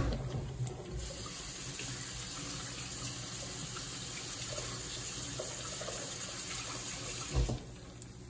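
Kitchen tap turned on, running steadily for about six seconds, then shut off, with a knock as it starts and as it stops.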